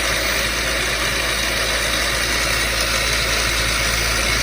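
Milling machine spindle running steadily at about 2,000 RPM with a laser-pointer arbor in it: an even mechanical hum and hiss.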